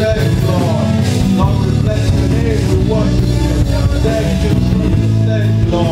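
Alto saxophone playing a melody with bending, sliding notes over a live band, with low notes held underneath.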